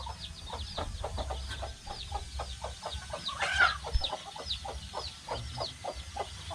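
A flock of domestic chickens feeding: hens clucking, with many rapid, high, falling peeps from young chicks. One louder call comes about three and a half seconds in.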